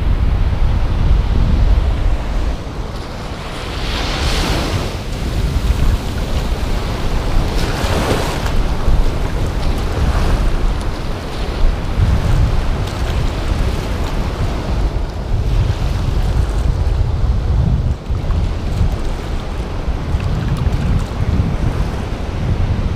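Sea surf washing in shallow water, with heavy wind buffeting on the microphone. Louder hissing washes of water come about four and eight seconds in.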